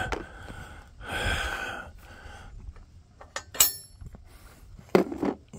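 Steel hitch pins being pulled from a tractor's three-point hitch and receiver: a sharp, ringing metal clink about three and a half seconds in and a duller knock of metal on metal about five seconds in.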